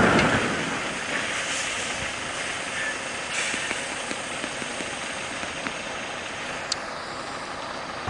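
Steady outdoor vehicle noise, a truck running at the roadside, with a short click near the end.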